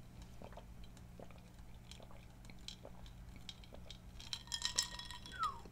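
Faint mouth sounds and swallowing after a drink of cola, with scattered soft clicks. A few faint ticks and a short falling tone come near the end.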